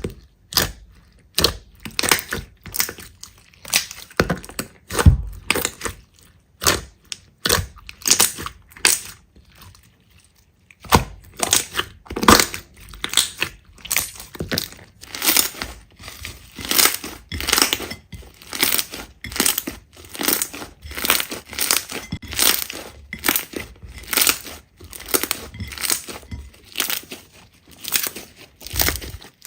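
Slime being squeezed and pressed, giving a run of sharp crackling pops and clicks about two a second, with a short pause about ten seconds in.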